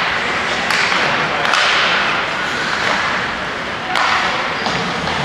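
Ice hockey game in a rink hall: spectators' chatter and calls over the steady hall noise, with a few sharp cracks of sticks and puck, about a second in, again shortly after, and around four seconds in.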